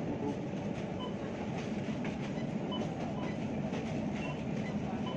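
Steady low rumbling background noise in a supermarket aisle, with faint short high blips now and then.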